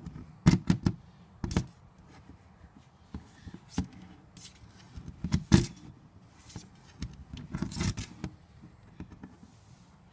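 Staywell plastic cat flap clicking and knocking in its frame in irregular clusters as a tortoise's shell pushes against it from outside. The loudest clicks come about half a second in and about five and a half seconds in.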